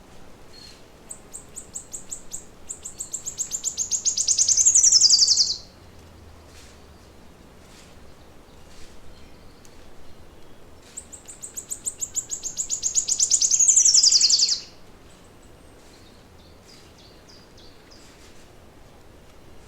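A songbird singing twice, about ten seconds apart. Each song is a high, rapid series of notes that speeds up and grows louder for about four seconds, then ends in a quick falling sweep. Fainter scattered chirps fill the gaps.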